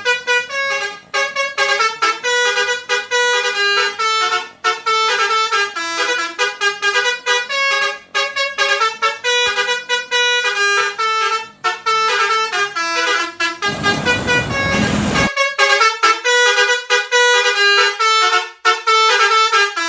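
Multi-tone telolet bus horn playing a fast melody of short stepped notes. About fourteen seconds in, the tune is broken by a burst of noise lasting about a second and a half, then the horn tune resumes.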